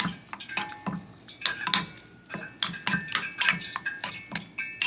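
Metal spoon stirring chicken pieces through wet batter in a ceramic bowl, clinking against the bowl's side in a quick, irregular run of taps, each with a short ring.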